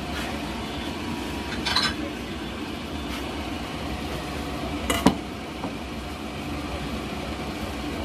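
Steady low background hum with a brief rattle about two seconds in and a sharp clink of kitchen dishes about five seconds in, followed by a small click.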